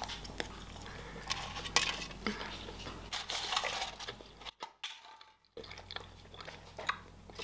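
Close-up eating and handling sounds: chewing Kinder chocolate and handling foil-wrapped Kinder eggs, giving scattered small clicks and crinkles. The crinkling is densest about three seconds in. The sound cuts out for about a second near five seconds.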